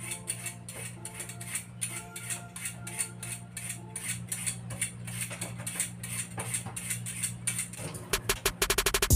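Hand-held vegetable peeler scraping the skin off a sweet potato: a string of short scrapes and clicks, over soft background music and a steady low hum.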